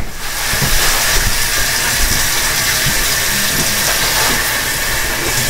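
Water running steadily from a kitchen tap into the sink, a continuous hissing rush, with a single knock right at the start.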